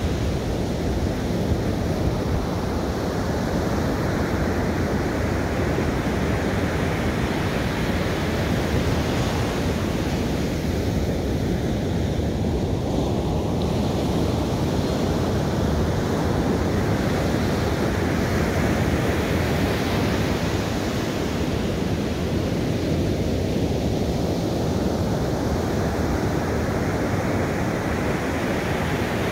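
Ocean surf breaking on a sand beach: continuous wave noise, its hissing wash fading and building again a few times as waves break and run up the sand.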